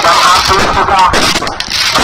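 Crowd noise of many voices with sharp bangs from firecrackers going off several times.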